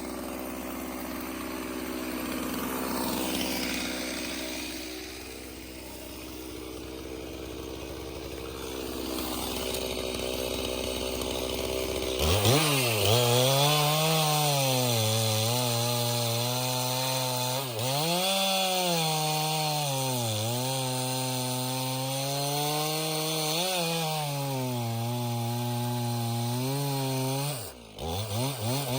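Stihl MS 391 two-stroke chainsaw sawing red oak. It runs at lower speed at first, then is throttled up about twelve seconds in and cuts. Its pitch sags and recovers several times as the chain bites into the wood, and it is let off near the end with a couple of short blips of throttle.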